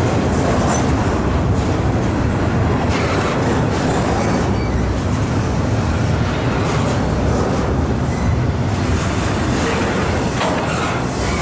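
A slow freight train of empty container well cars rolling past close by: a steady, loud rumble and rattle of steel wheels on the rails.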